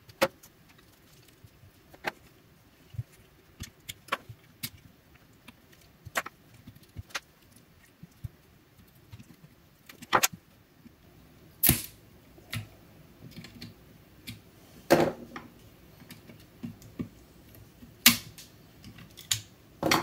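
Irregular sharp clicks, taps and light scrapes of small hand tools, a plastic pry tool and metal tweezers and pliers, working against the cells and nickel strips of an opened DeWalt FlexVolt battery pack, with a few louder clacks in the second half.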